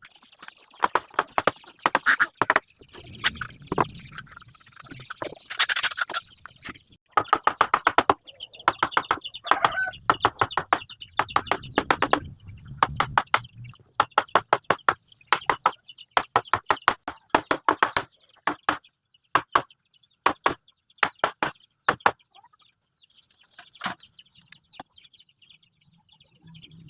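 Hammering on wood in quick runs of sharp knocks, several a second, with short pauses between the runs.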